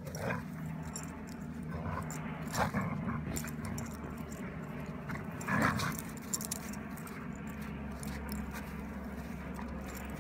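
A golden retriever and a Groenendael (black Belgian Shepherd) play-fighting in snow, with a few short dog vocal sounds; the loudest come about two and a half and five and a half seconds in.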